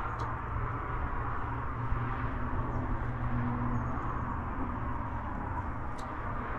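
Steady outdoor rushing noise with a low rumble, over which a few faint, short, high chirps come and go.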